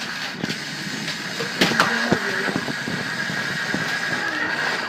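Toy RC truck's small electric motor and plastic gears whining as it drives, with a sharp knock about a second and a half in, after which a steady high whine holds.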